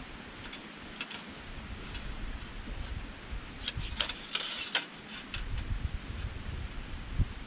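Wind rumbling on the microphone, with a cluster of sharp clicks and crackles about three and a half to five seconds in.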